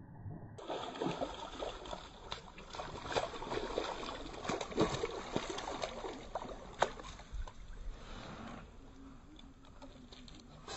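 A hooked red-bellied pacu thrashing and splashing at the water surface on a fishing line, in irregular splashes over several seconds. The splashing dies down near the end as the fish is lifted out of the water.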